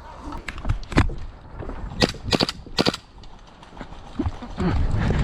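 Airsoft gunfire: a single sharp crack about a second in, then three sharp cracks about half a second apart.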